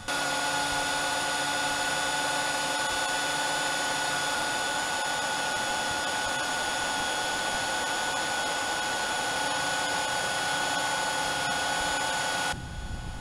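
LEGO Technic electric motors driving the model boat's propellers, a steady whine with gear noise that holds one pitch throughout. The sound cuts off suddenly near the end.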